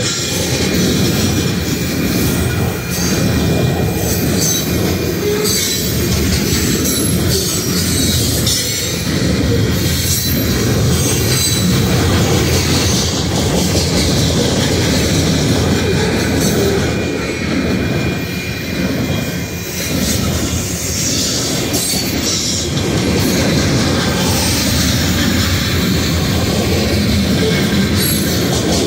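Coal hopper cars of a long freight train rolling steadily past: a continuous rumble of steel wheels on rail with irregular clicks over the rail joints and a faint thin wheel squeal.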